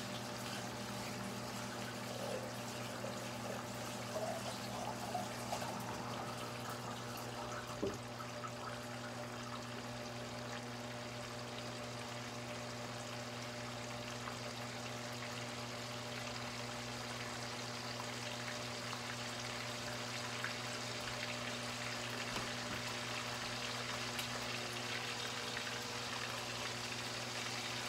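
Thick-cut bacon sizzling in a frying pan: a steady hiss with faint scattered crackles, over a steady low hum.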